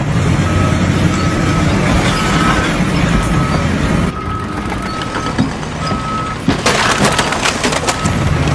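A heavy vehicle's reversing alarm beeping repeatedly over its running diesel engine, with a short burst of loud clattering about seven seconds in.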